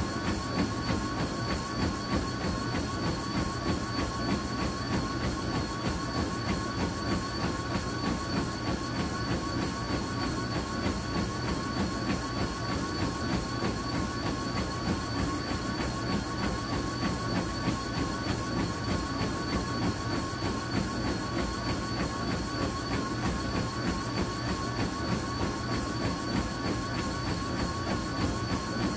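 Treadmill running at about 8.5 mph: its motor makes a steady whine, and a runner's footfalls strike the belt in an even rhythm of about three steps a second.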